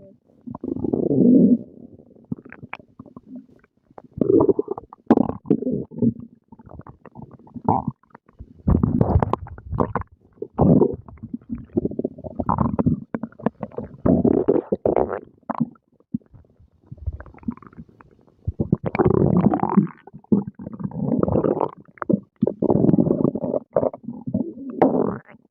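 A person's stomach growling and gurgling while digesting breakfast, in many irregular bursts of low, watery rumbling with short pauses between them.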